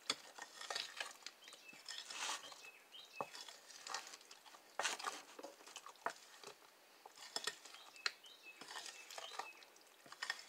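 Wooden spoon stirring thick, undiluted condensed cream soup in a glass bowl. It makes soft, irregular scraping sounds, with now and then a sharp tap of the spoon against the bowl.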